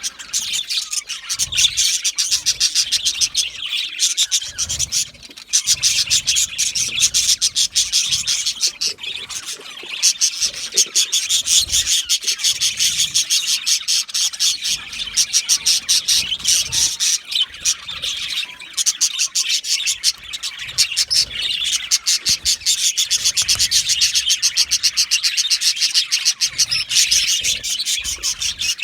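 A flock of budgerigars chirping and chattering in an aviary, a dense, continuous stream of rapid high-pitched chirps from many birds at once.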